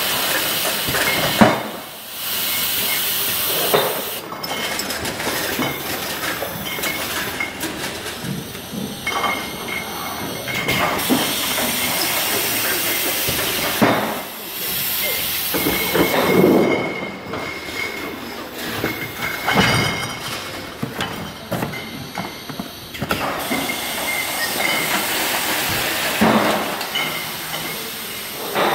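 Bottling line running: a steady hiss with rattling and many short knocks of glass beer bottles jostling on the conveyors through the Meheen M6 filler, capper and labeler. A faint high steady whine comes and goes.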